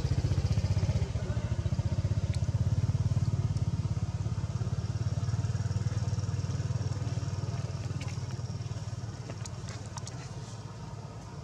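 Motorcycle engine running with a steady low, rapid throb that slowly fades away over the second half.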